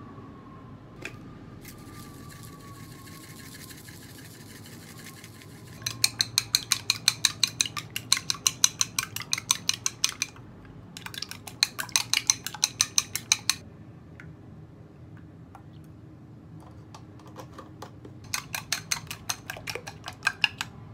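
Chopsticks beating raw eggs in a glass bowl, clicking rapidly against the glass at about five taps a second in three spells of whisking.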